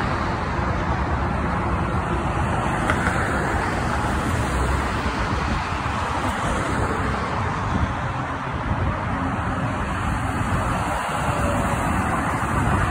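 Steady multi-lane highway traffic: a continuous rush of tyres and engines from passing cars and trucks.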